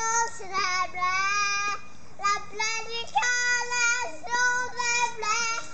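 A young girl singing unaccompanied: a run of long held notes in short phrases, with brief breaks for breath between them.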